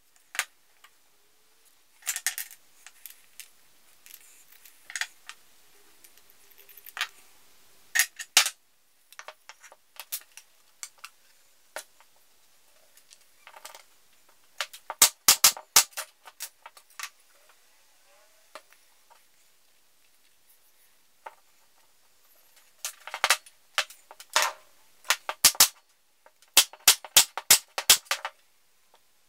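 Wooden wheel discs and small parts being handled and set down on a workbench: scattered sharp knocks and clicks in clusters, busiest just past the middle and near the end.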